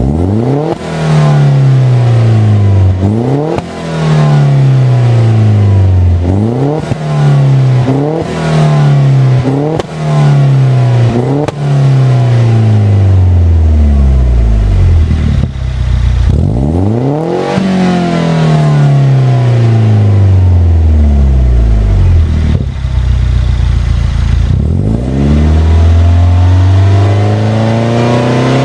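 Citroen DS3 1.6 THP turbocharged four-cylinder engine breathing through a Supersprint full exhaust system, revving repeatedly. The first half is a run of short, sharp revs, each rising fast and falling back more slowly; the second half has a few longer, slower rises and falls.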